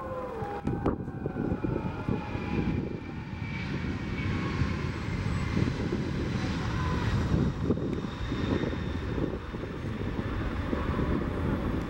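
Airbus Beluga ST's two General Electric CF6 turbofan engines at takeoff power as the aircraft rolls down the runway and lifts off: a steady deep rumble with a faint whine above it.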